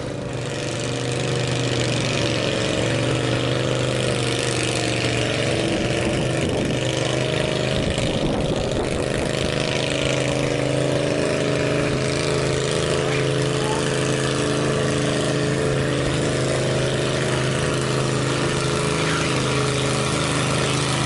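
Modified lawn tractor engine running at a steady, even speed.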